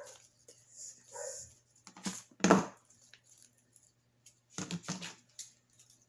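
A household pet's short calls: two brief ones near the start and a louder one midway. Then a few clicks and rustles of ribbon and artificial flowers being handled.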